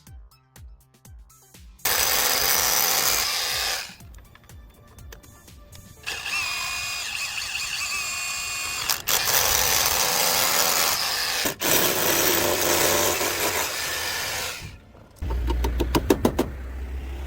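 Power drilling in several bursts of a few seconds each, with quieter gaps between them, over background music.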